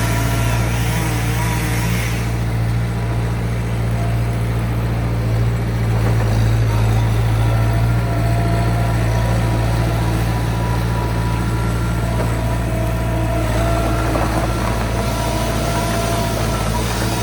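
A vehicle engine running steadily at a constant low hum, with no revving.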